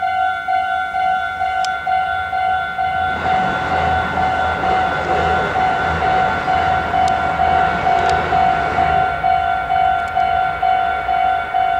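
Japanese level-crossing warning bell ringing an electronic ding about twice a second. A Meitetsu 3100-series electric train passes over the crossing from about three seconds in to about nine seconds, its wheel and rail noise rising and fading, with a couple of sharp clicks near the end of the pass.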